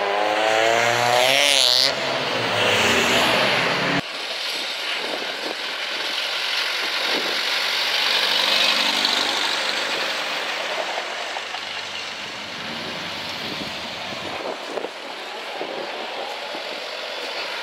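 A car engine accelerating hard, its pitch climbing over the first two seconds. About four seconds in the sound changes abruptly to quieter, more distant car engines and street noise.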